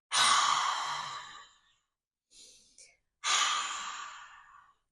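A woman breathing out twice with her mouth open, long breathy 'haaa' breaths that fade away, onto a mirror to fog it up: the breathy H sound. A short faint breath comes between the two.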